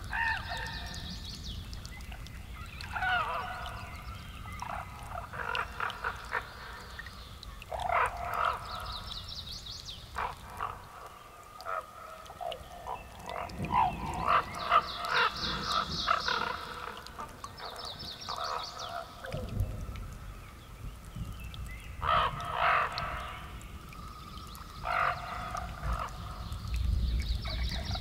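Lakeside wildlife calling in short bursts every second or two, with a low rumble of distant thunder coming in partway through and growing louder near the end.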